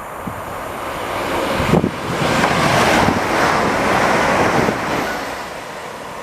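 A train passing through the station: a rushing noise that swells over about a second, holds, then fades away, with a few low thumps near the start.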